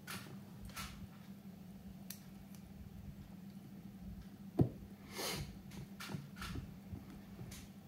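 Small handling noises from work on a Hornby 9F model locomotive: several brief scratchy rubs of small plastic and metal parts, and one sharp tap a little past halfway, which is the loudest sound. A steady low hum runs underneath.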